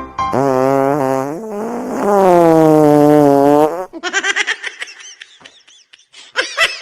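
A long, loud, buzzing prank fart sound in two parts, lasting about three and a half seconds. It is followed by a run of short, high, squeaky sounds that rise and fall.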